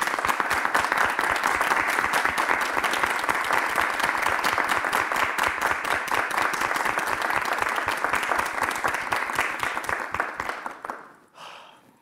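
People applauding: steady hand clapping that fades out about ten seconds in.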